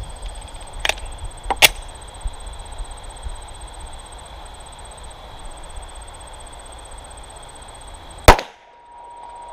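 A single 9mm pistol shot from a Glock 19 firing a handload (125 gr round-nose bullet over 4.8 gr of Vihtavuori N340), sharp and loud, about eight seconds in. Before it, two short clicks about a second in, half a second apart.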